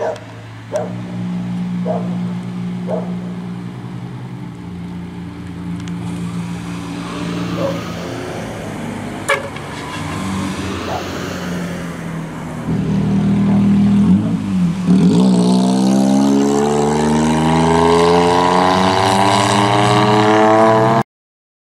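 Truck engines running as vehicles drive by, with a few short knocks early on. About three-quarters of the way through, one passes close and its engine note rises steadily and grows louder as it speeds up, until the sound cuts off suddenly.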